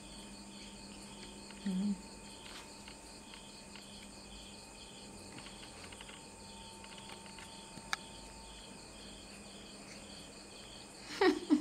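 Crickets chirping steadily, a regular pulsing about two times a second, over a faint steady hum. A single sharp click comes near eight seconds in.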